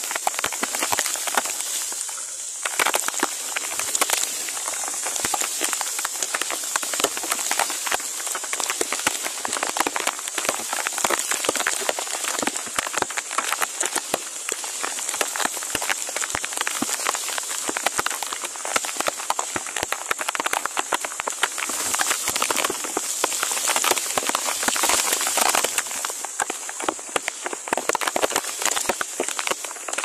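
Rain falling on foliage and the nest's dry grass: a dense, even crackle of drops over a steady high hiss.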